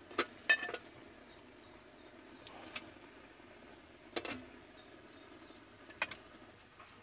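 Chopped cabbage and potato dropped by hand and tipped from a steel bowl into an aluminium kadhai: a few sharp clinks and knocks of metal and vegetables over a faint steady hiss.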